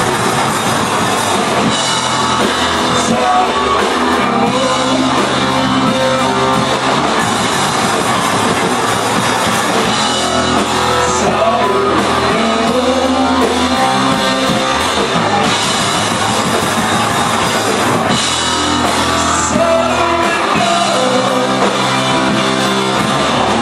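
Loud rock music with a drum kit and guitar, playing continuously.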